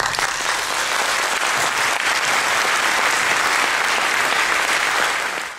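Audience applauding at the end of a talk, a steady dense clapping that fades out at the very end.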